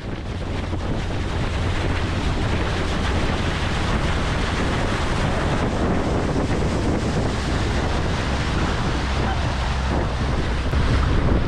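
Wind rushing over the microphone and water hissing along the hull of a motorboat running at speed, over a steady low engine drone.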